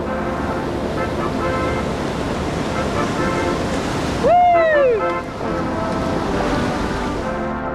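Whitewater of a river rapid rushing close to the microphone, with background music faintly underneath. About four seconds in, a person gives one loud whoop that rises and then falls in pitch. The rushing water cuts off just before the end.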